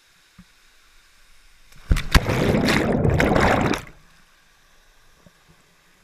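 A person jumping into a waterfall pool: a sharp splash about two seconds in as they hit the water, then close, loud churning water for nearly two seconds as they go under, which cuts off suddenly.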